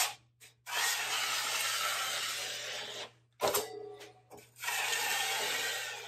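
Steel drywall knife drawing joint compound along Straight Flex corner tape: two long scraping strokes, the first about a second in and the second about four and a half seconds in, with a short clatter between them.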